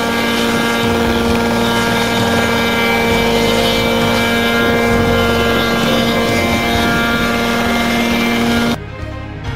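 Small helicopter hovering close to the ground, its engine and rotor running with a steady drone. Near the end the sound cuts off abruptly and music takes over.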